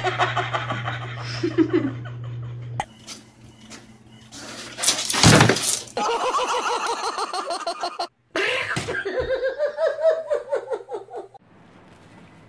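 A sudden loud crash about five seconds in, followed by people laughing in quick, pulsing bursts for several seconds.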